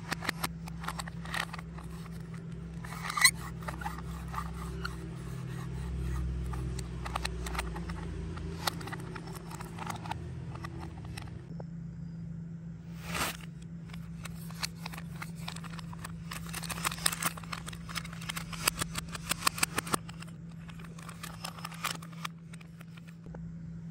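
Hands handling plastic toy vehicles over a bed of foam beads: scattered plastic clicks and clacks with some rubbing and rustling, over a steady low hum.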